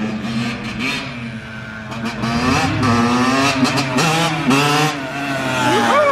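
Dirt bike engine revving hard, its pitch climbing and dropping several times and getting louder.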